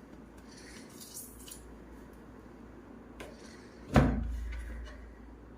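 Faint clicks and rustles of a small plastic LCD writing tablet being handled while its battery goes back in, then one sharp knock about four seconds in that rings out briefly.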